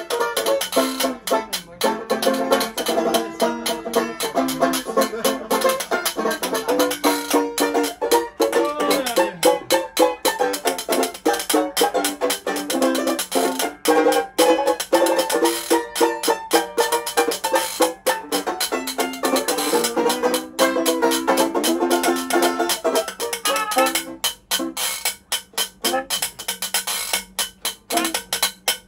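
Small acoustic jug-band-style group playing: a strummed banjo and a scraped metal rubboard (frottoir) keep a busy rhythm under a melody line. The melody thins out in the last few seconds, leaving mostly the banjo and rubboard strokes.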